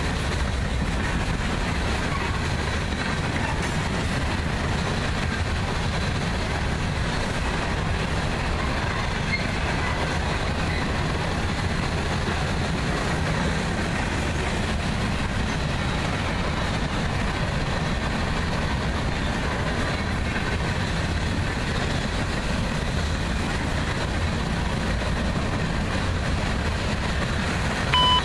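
Freight train of covered hopper cars rolling past, steel wheels on rail making a steady, deep rumble. A short beep sounds near the end.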